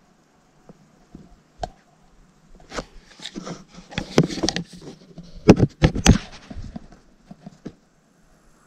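Handling noise of a plastic sewer pipe with a plastic bottle fitted inside: scattered knocks, clicks and scraping, busiest and loudest from about four to six seconds in.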